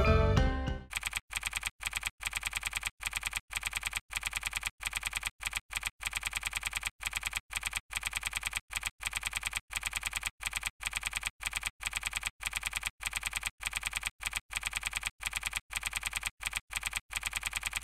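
Typing sound effect: a rapid run of keyboard clicks with short breaks every few tenths of a second, starting about a second in as music fades out and cutting off abruptly at the end.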